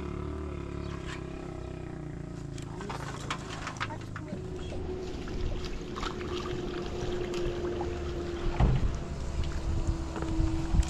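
A motor running steadily, a low hum with a slowly wavering tone, with scattered light clicks and knocks over it.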